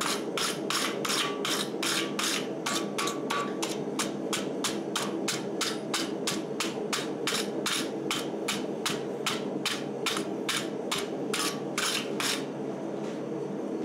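A hand-held wooden block striking a red-hot forged steel cup on an anvil in quick, even knocks, about three a second, that stop near the end. A steady low hum runs underneath.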